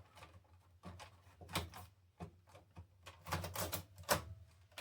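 Clicks and knocks of plastic and metal parts being fitted back into an HP small-form-factor desktop case, in a handful of separate strikes with a quick cluster late on.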